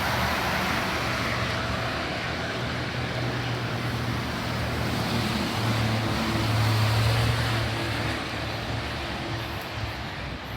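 Road traffic passing close by on a fast road: steady tyre noise with a low engine hum, swelling as a vehicle goes by about six to eight seconds in.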